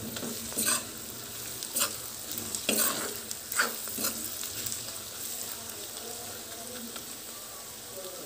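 Sliced onions frying in hot oil in a metal wok, sizzling steadily, while a metal spatula stirs and scrapes against the pan with several sharp scrapes in the first four seconds or so; after that only the sizzle goes on.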